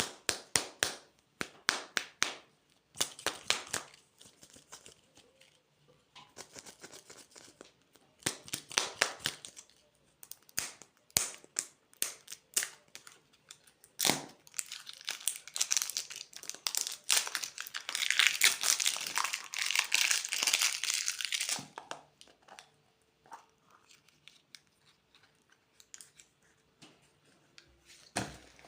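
Plastic candy wrappers being handled and torn open: bursts of sharp crinkling and crackling, with a longer stretch of dense crinkling past the middle.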